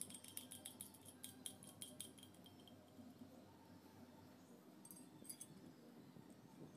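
Faint, quick light metallic clinks and jingles, most of them in the first couple of seconds and a few more near the five-second mark, over a low steady hum.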